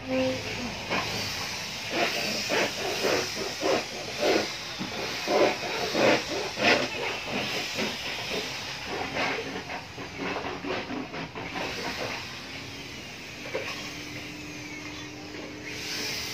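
Footsteps crunching on a dirt and gravel floor, irregular, about two a second, over a steady hiss, stopping about twelve seconds in; a faint steady hum comes in near the end.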